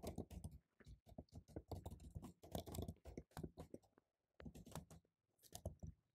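Faint typing on a computer keyboard: quick, irregular keystrokes, with a brief pause about two-thirds of the way through.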